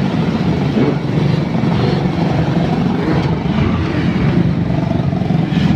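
Steady rumble of a running vehicle's engine and road noise, continuous and unbroken.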